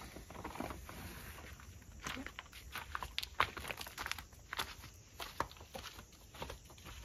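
Footsteps on leaf litter and dirt, a scattered series of short crackles and snaps, with soft rustling of gear being handled at first.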